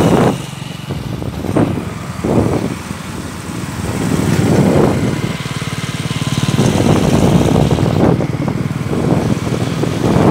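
Motorcycle engine running at road speed while riding, with wind buffeting the microphone in irregular gusts.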